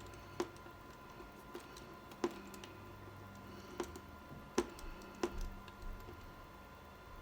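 Irregular sharp clicks and taps of a hand hex driver working the wing-mounting screws tight into brass threaded inserts.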